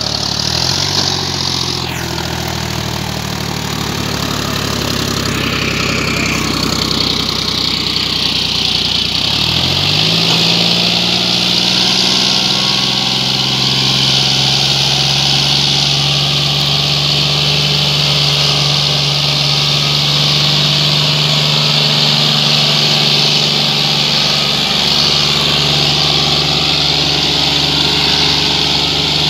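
John Deere 5039D tractor's three-cylinder diesel engine running hard under load in loose soil, its note rising in pitch about ten seconds in and then holding steady, over a steady high hiss.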